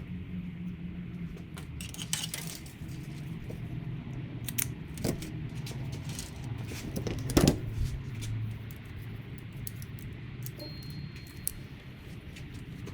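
Scattered light clicks and clinks of small hard objects being handled, with a sharper cluster about seven and a half seconds in, over a steady low hum.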